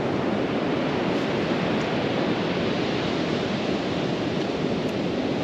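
Steady rush of ocean surf breaking and washing on the beach.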